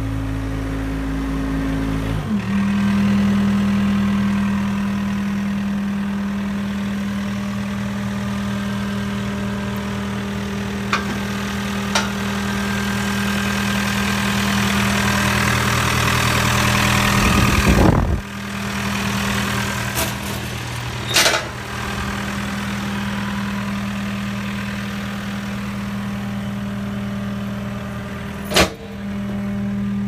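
John Deere 317G compact track loader's turbocharged diesel engine running steadily at idle, its note shifting about two seconds in, with a few brief knocks.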